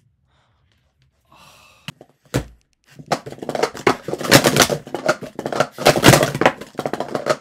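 Clear KSSA plastic sport-stacking cups clattering in a fast, continuous run of clicks and clacks as a timed speed-stacking attempt is built up and taken down on a mat, starting about three seconds in. A single low thud comes just before the stacking begins.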